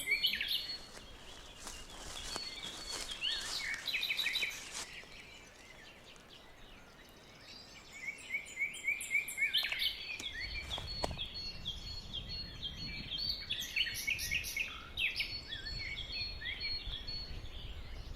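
Songbirds singing: quick runs of high chirping notes, pausing for a few seconds in the middle, with a low rumble joining about ten seconds in.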